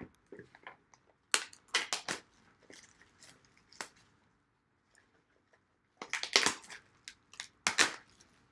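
Plastic shrink wrap crinkling and tearing as a sealed trading-card box is unwrapped, in two bouts of crackling: one about a second in, and a louder one near the end, with small crackles between.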